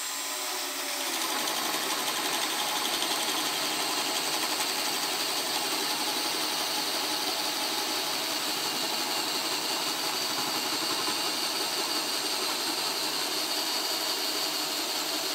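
Bosch brushless hammer drill in low gear (speed one) boring a 1-1/2-inch hole into a thick wooden block, the motor running steadily under load as the bit cuts into the wood. It starts right at the beginning and runs without a break.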